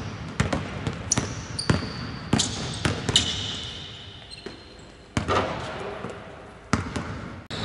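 Basketballs bouncing on a hardwood court at an uneven pace, each thud echoing around a large empty arena, with a few high sneaker squeaks in between.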